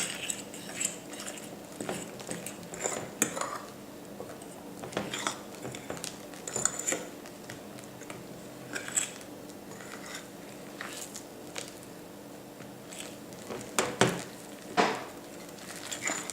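A utensil stirring slime mixture of glue and shaving foam in a bowl just after borax eye drops are added, giving irregular scrapes and clicks against the bowl, with a couple of louder knocks near the end.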